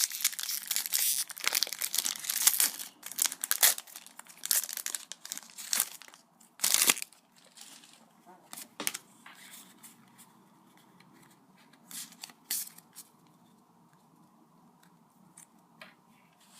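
Pokémon booster pack's foil wrapper being torn open and crinkled, with a loud rip about seven seconds in. After that come softer rustles and a few clicks of the cards being handled, dying down to quiet.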